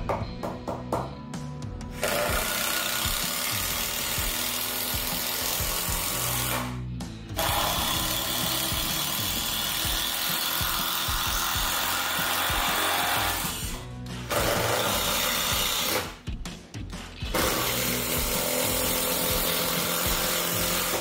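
Cordless drill running into wooden 4x4 timber in four long runs of several seconds each, with three short pauses between them. Background music plays underneath.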